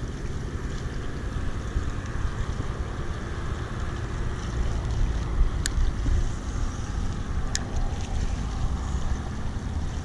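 Wind buffeting the microphone, a steady fluttering low rumble, with two sharp clicks a little past the middle, about two seconds apart.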